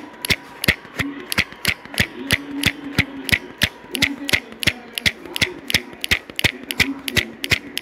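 Rapid, even ticking, about three sharp clicks a second, like a clock or ratchet, with a faint low tone that comes and goes.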